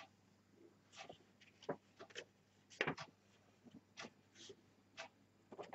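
Red embossing powder being tipped off a folded sheet of paper back into its small pot: faint, scattered paper rustles and light ticks of grains.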